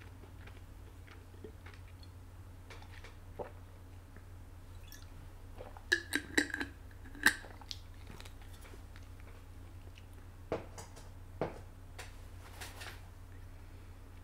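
A person eating close to the microphone: chewing and mouth noises, with scattered sharp clicks and a short louder cluster of squeaky clicks about six to seven seconds in, over a steady low hum.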